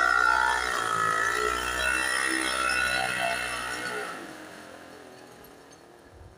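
A motor vehicle's engine running, loud for about four seconds, then fading away.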